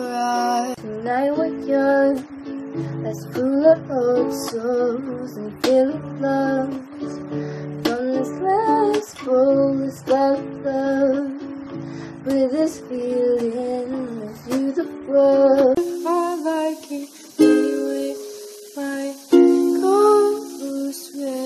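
A woman singing over an acoustic guitar. About 16 seconds in, the sound cuts to a different recording with more hiss and no deep bass notes, and the singing and plucked accompaniment carry on.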